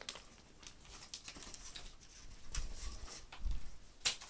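Plastic-bag kite rustling and crinkling as it is unhooked and taken down by hand, with scattered small clicks, a few low bumps of handling, and a louder crinkle near the end.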